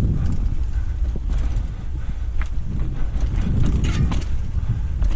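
Mountain bike descending rocky dirt singletrack: a steady low rumble of tyres and wind on the camera, with the bike rattling over bumps and a few sharper knocks, the clearest around the middle and about four seconds in.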